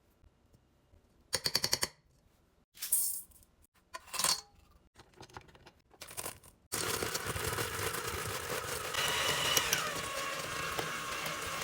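A few short kitchen clatters and rustles, one a quick run of clinks, then a blender starts about seven seconds in and runs steadily, churning ice cream and cookie pieces.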